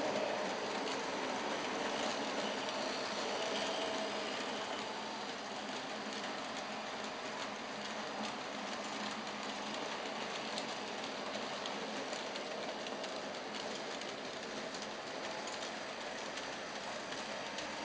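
HO-scale model goods train of tank wagons running up a layout helix: its wheels roll with a fine rapid clicking over the track, over a faint steady motor hum. It is a little louder in the first four seconds, then steady.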